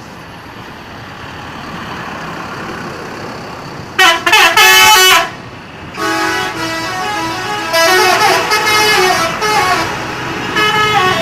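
Bus 'telolet' multi-tone horn playing a short tune: a very loud burst of falling notes about four seconds in, then a longer run of changing notes from about six seconds in. Before it, engine and road noise grows louder as the bus comes closer.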